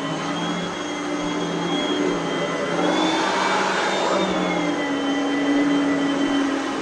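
Oreck Elevate Conquer upright vacuum running on its carpet setting: a steady motor hum and whine over a rush of air. About three seconds in the pitch shifts slightly and the rush swells for about a second and a half, then settles back.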